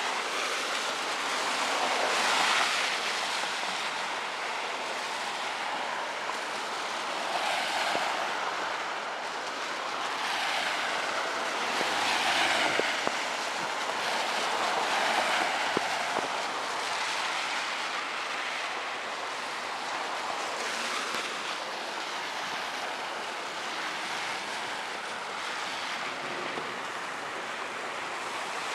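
Steady rain hiss, with car tyres swishing over the wet road as vehicles pass, each pass swelling and fading over a few seconds, several times.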